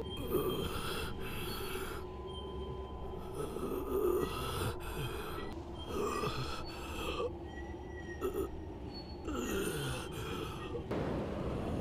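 Ragged gasping breaths repeated over and over, with a few short falling groans among them.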